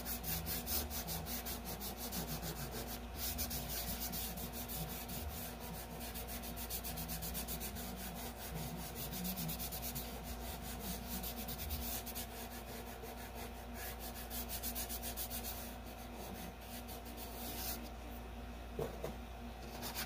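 Fingertips rubbing soft chalk pastel into paper, a dry scratchy rubbing in quick repeated strokes that eases off near the end.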